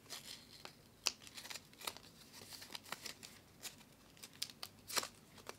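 A fold-out paper template being unfolded and handled: faint, scattered paper crinkles and small ticks.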